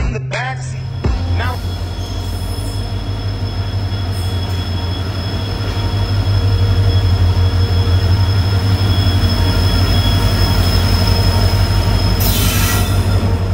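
Indian Railways WDG4 diesel locomotive hauling a freight train past: a steady low engine throb with wheels running on the rails and a thin, steady high squeal, growing louder about halfway through as the locomotive draws level and the wagons roll by. A short burst of hiss comes near the end, and music cuts off about a second in.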